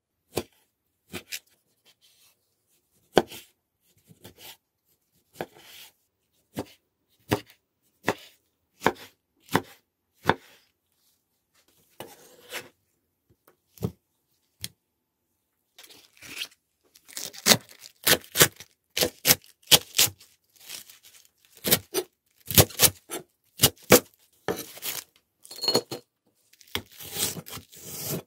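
Kitchen knife cutting tomatoes on a wooden cutting board: single sharp knocks of the blade on the board, about one a second. After a quieter spell, a much faster run of chopping strikes on the board fills the last ten seconds or so as vegetables are cut.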